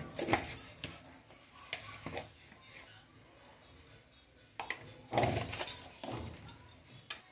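Metal kitchen utensils clinking and knocking against a pan and containers in scattered short clatters, the loudest cluster about five seconds in.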